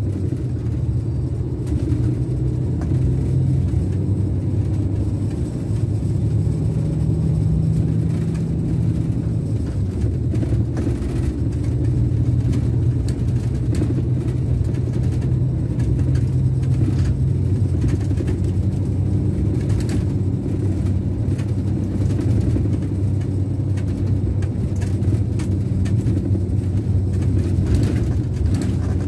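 Scania K410 coach's rear-mounted DC13 inline-six diesel, heard from inside the upper deck, running steadily at road speed with road noise; its pitch shifts slightly a few times.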